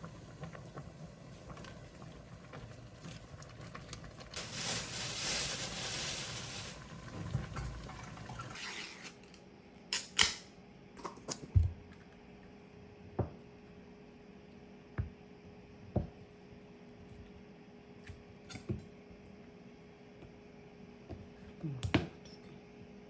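Kitchen work: a steady rushing of water or pouring for the first several seconds, loudest around five to seven seconds in. After that come scattered sharp clinks and knocks of dishes and utensils being handled, about a dozen of them, over a faint steady hum.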